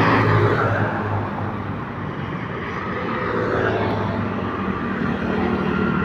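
Street traffic: motor vehicles passing on the road, a continuous rush of tyres with engine hum.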